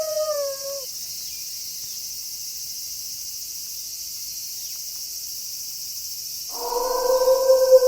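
Steady chirring of crickets. A wolf howl ends with a falling pitch in the first second, and a new long howl begins near the end and is the loudest sound.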